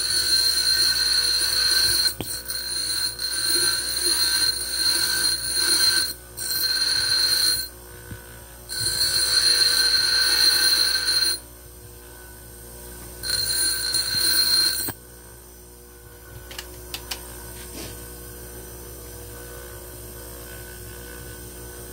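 Bench grinder wheel grinding a small steel blade blank thin: a steady high-pitched grinding squeal in four passes of a few seconds each. After the last pass, about fifteen seconds in, the blank comes off and the grinder keeps spinning with a low, steady hum.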